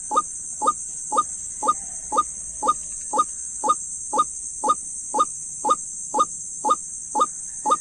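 White-breasted waterhen (dahuk) call, a short 'kruak' note repeated evenly about twice a second, of the kind played as a ringtone lure for trapping. A steady high hiss runs behind it.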